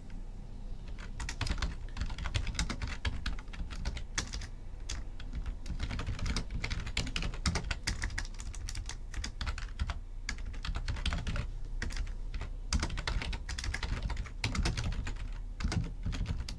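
Typing on a computer keyboard: a quick, uneven run of key clicks that starts about a second in and goes on with short pauses.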